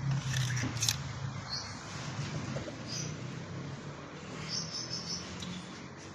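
Several short, high chirps from small animals, over a low steady hum that fades about a second in.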